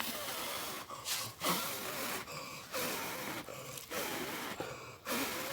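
A person blowing hard and repeatedly on smouldering tinder to coax an ember into flame: a series of rushing breath puffs, each about a second or less, with quick inhales between them.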